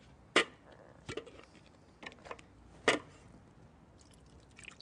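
Two sharp knocks about two and a half seconds apart, with a few fainter taps between: kitchen things, a colander and a blender jar, being set down and handled on a table.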